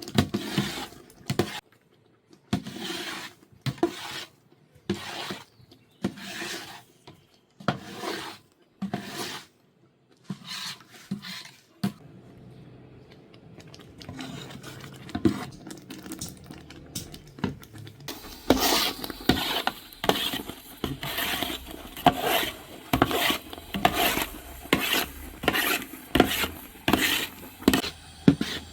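Rhythmic scraping of a utensil against cookware while working sour plum pulp, about one stroke a second, with a quieter pause in the middle, then faster and louder strokes from about two-thirds of the way in.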